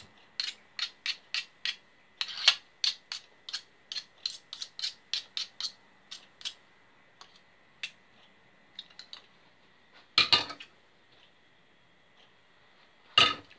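Metal fork scraping and clinking against a glass mixing bowl as thick cake batter is scooped out. It is a quick run of light clicks, about three a second, that thins out after about six seconds, followed by two louder knocks, one about ten seconds in and one near the end.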